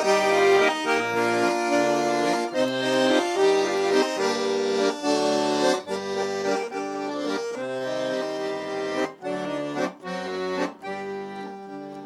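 Accordion playing the instrumental introduction to a folk-style song: a melody over held chords and a bass line that changes note every half second or so.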